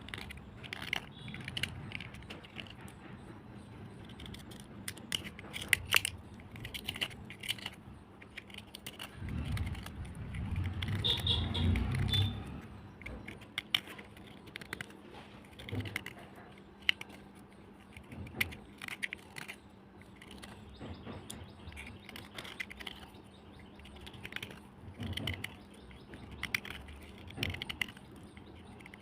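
Black slate cubes crunching, with irregular sharp crisp cracks scattered throughout. A louder low rumbling stretch comes about nine to twelve seconds in.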